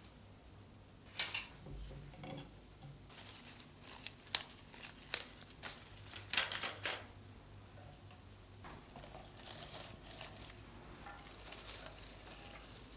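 Household items being handled: scattered light clicks, clatters and rustles, busiest between about four and seven seconds in, over a faint steady hum.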